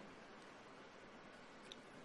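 Near silence: faint steady hiss, with one faint click near the end.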